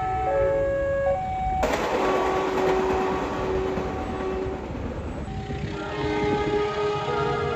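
Indonesian diesel locomotive horns sounding the Semboyan 35 signal in multi-note chords over the low rumble of the train. The first chord steps up and down in pitch, then breaks off abruptly about a second and a half in. A fainter horn follows, and another horn chord sounds from about five seconds in.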